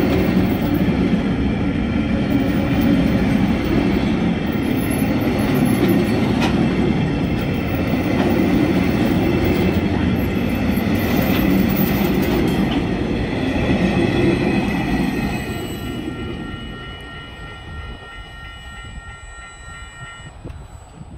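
Empty flat wagons of a TasRail freight train rolling past over a level crossing: a steady rumble and clatter of steel wheels on the rails, fading once the last wagon has gone by about fifteen seconds in. A steady high ringing tone is left after the train passes and stops near the end.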